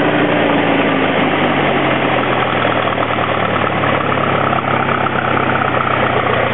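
Minneapolis-Moline Jet Star tractor engine idling steadily just after a cold start. It is a near-new replacement engine that runs like brand new. Its speed eases down a little over the first couple of seconds, then holds even.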